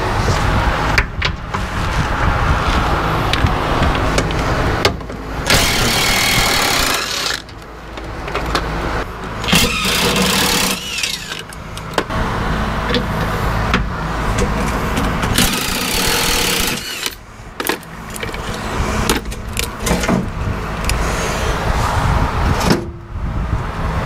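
Power driver with a half-inch socket spinning out the underbody shield bolts of a Ford Maverick, running in long bursts with short pauses between bolts.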